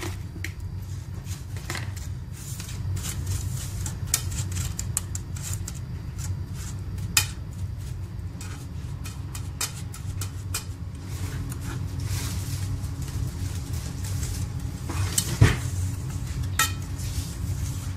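Metal spoon scraping and tapping in a non-stick cake pan while buttered chocolate biscuit crumbs are spread and pressed into a base, over a steady low hum. Two louder knocks, one about seven seconds in and one a couple of seconds before the end.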